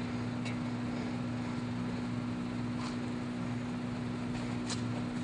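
Steady low machine hum, likely a fan or other running motor in the shop, with three faint light clicks as a steel steering knuckle with a freshly pressed-in wheel bearing is handled.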